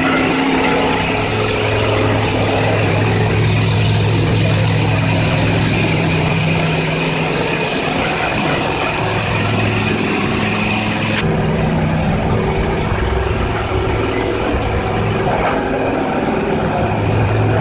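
Leisuwash 360 touchless automatic car wash running: high-pressure water jets hiss against a car over the steady hum of the machine's pump motor. The hiss turns duller abruptly about eleven seconds in.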